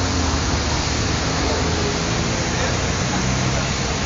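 Steady vehicle noise: a low engine hum under a constant hiss of road and wind noise.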